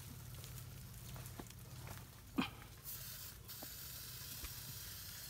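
Leaves, grass and twigs crackling and rustling in undergrowth around a wild elephant's feet, with scattered small clicks and one sharp snap about halfway through. A steady high hiss sets in about three seconds in.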